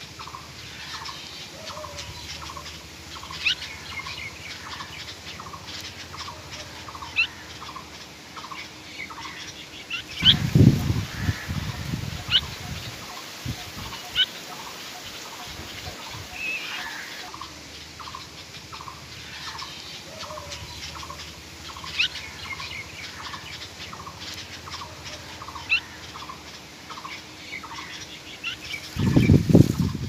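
Birds calling: a steady series of short calls repeated about twice a second, with scattered sharp chirps over them. Two louder, lower bursts of sound break in about a third of the way through and near the end.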